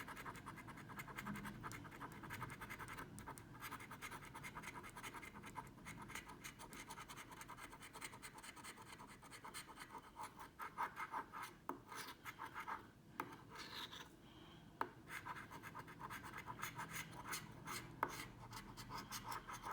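Lottery scratchcard being scratched: fast, repeated scraping strokes across the card's coating as the numbers are uncovered, faint, with a short pause about two-thirds of the way through.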